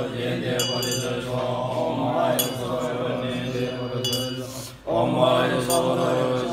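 Low-pitched Buddhist mantra chanting, a steady recitation with a brief pause about five seconds in, with a few light metallic clinks over it.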